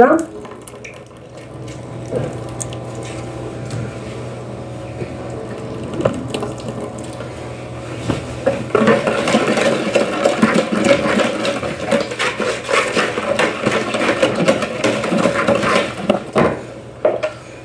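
Wire whisk beating thin chocolate cake batter in a bowl: a rapid sloshing, clattering run that starts about nine seconds in and lasts some seven seconds, after a quieter stretch with a low steady hum.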